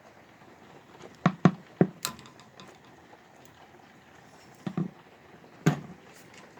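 A handful of sharp knocks and taps over a faint steady background: three in quick succession a little over a second in, another just after two seconds, a close pair just before five seconds and a last one near the end.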